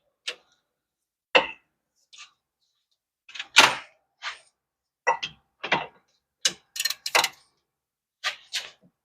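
Irregular clicks and knocks of hand tools as a 17 mm socket and ratchet are handled and set on the hub assembly bolts, with a cluster of sharp clicks near the end.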